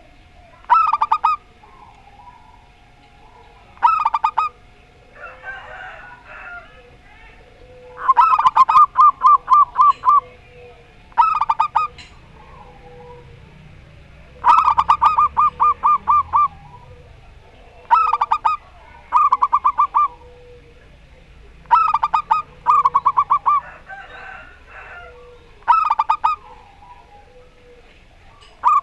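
Zebra doves (perkutut) calling back and forth. Repeated bursts of rapid staccato cooing notes, some brief and some drawn out into longer runs, with softer cooing in the gaps.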